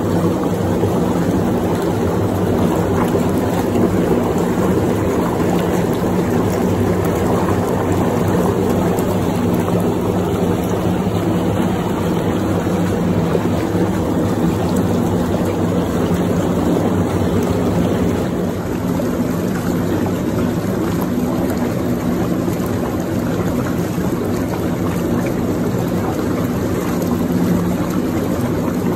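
Whirlpool bathtub jets running: water churning and bubbling over the steady hum of the jet pump motor.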